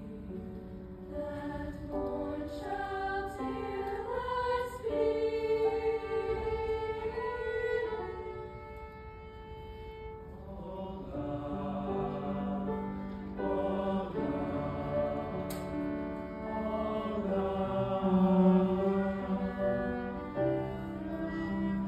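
Live cello playing slow, sustained notes with a low held note underneath, accompanied by a choir singing long held chords. The music softens for a few seconds about halfway through, then swells again near the end.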